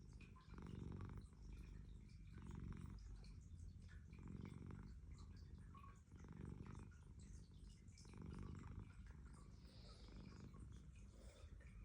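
Domestic cat snoring softly in its sleep: a low rattling rumble that swells with each breath, about once every two seconds.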